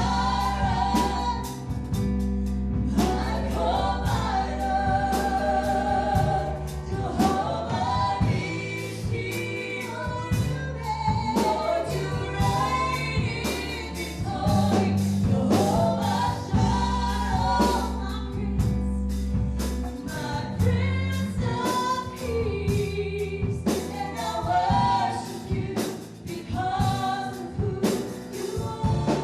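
Live gospel worship song: voices singing a melody together over a band with bass and drums.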